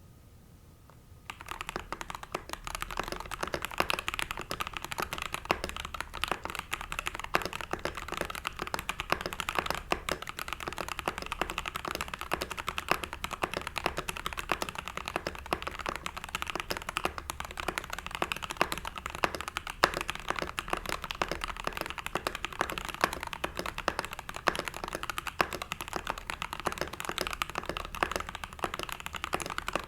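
Steady, fast typing on an Ikki68 Aurora R1 mechanical keyboard, starting about a second in: lubed and filmed Tealios v2 linear switches under PBT keycaps on an aluminium plate, with no silicone dampening in the case.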